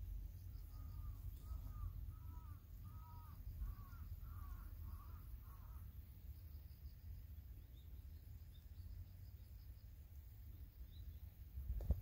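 A bird calling a quick run of about ten short, looping notes, about two a second, then falling silent, over a steady low rumble. A single sharp knock just before the end.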